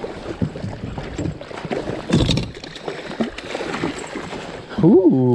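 Water splashing and sloshing around a small inflatable fishing raft while a trout is brought into the landing net, with scattered knocks and rubbing of handling and a louder splash about two seconds in. A man's voice calls out with a rising and falling pitch near the end.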